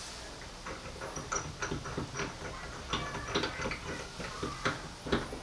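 Irregular light clicks and taps of chrome spoke handles being handled and fitted into a gun safe's handle hub, metal on metal, at a few a second.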